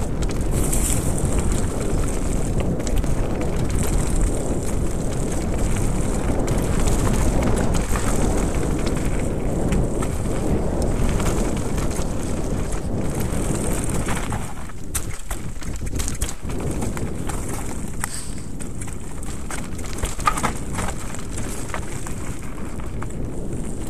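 Mountain bike descending a dirt trail: a steady low rumble of wind on the microphone mixed with tyre noise on dirt and leaves, and the bike rattling and knocking over bumps. The rush eases a little about halfway through.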